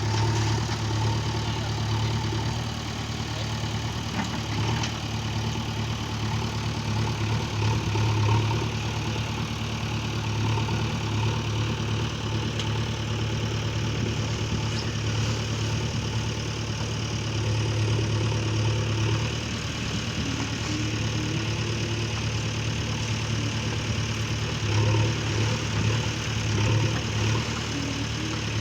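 A small engine running steadily, its low hum swelling and fading unevenly.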